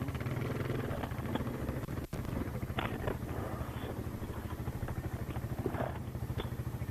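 Yamaha Grizzly ATV's single-cylinder engine idling steadily with a rapid even pulse, cutting out for an instant about two seconds in.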